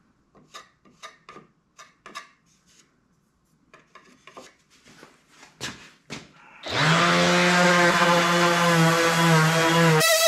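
A hand rasp scraping a hardwood board's handle in short, irregular strokes. About six and a half seconds in, an electric power tool starts and runs loudly and steadily with a low hum, drowning out the strokes.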